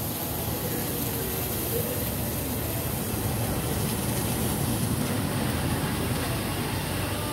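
Steady low rumble with a high hiss: constant background noise with no distinct events.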